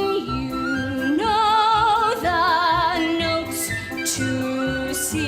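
A woman singing a show tune in a trained, operatic style over instrumental accompaniment. She holds several long notes with a wide vibrato.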